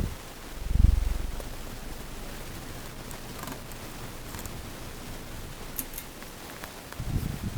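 30-inch Harbor Breeze Typhoon ceiling fan running with a steady, quiet airy hiss. There is a low thump about a second in and a few faint ticks, and a low rumble comes back near the end.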